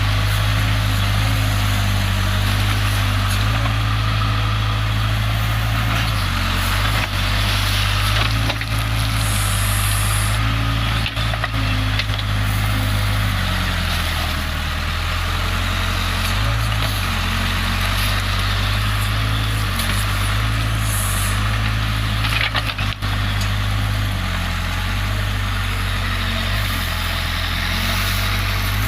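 Heavy diesel machinery engine running steadily, its note shifting several times as the load and revs change, with a few brief knocks.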